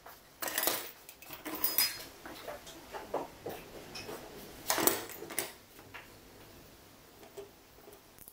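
Rusty steel hacksaw frame and blade clattering and clinking against a wooden workbench as they are set down and handled, with several sharp knocks, the loudest about five seconds in, then quieter handling as the blade comes off the frame.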